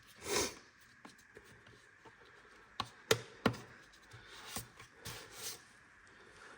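Light handling noises: a short rustle, then three sharp clicks or knocks close together about three seconds in, followed by a few soft rubbing sounds.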